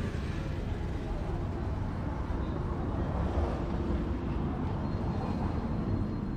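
Roadside street noise: a steady low rumble of road traffic, with faint voices in the background.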